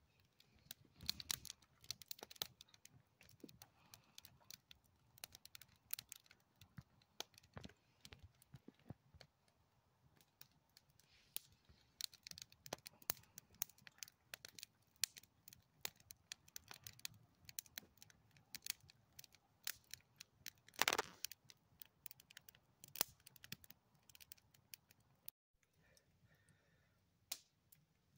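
Wood campfire crackling quietly, with irregular sharp pops and one louder pop about three-quarters of the way through.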